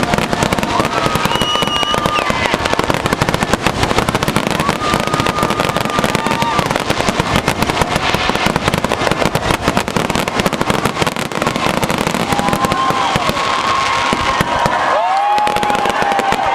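Fireworks barrage: many shells bursting at once in a dense, continuous crackle of rapid bangs, with a few held whistle-like tones over the top. The banging thins out near the end.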